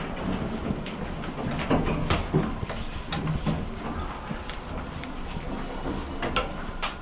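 Passenger elevator running with a steady low rumble, with scattered clicks and knocks.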